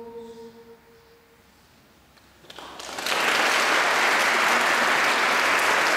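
A choir's last held chord dies away, and about two and a half seconds in the audience breaks into steady applause.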